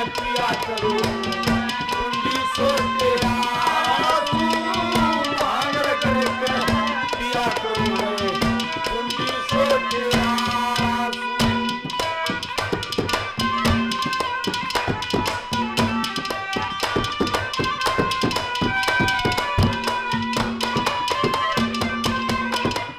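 Instrumental interlude of Haryanvi ragni folk music: harmonium playing held notes over hand drums and a clay pot (ghara) struck as percussion. A melody line bends in pitch through the first half, then from about halfway through a fast, dense drum rhythm takes over.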